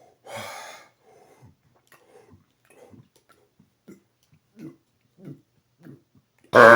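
A man's deliberate record-attempt burp: a breathy intake near the start, then a string of short gulps as air is swallowed. About six and a half seconds in comes a very loud, long burp loud enough to top 125 decibels.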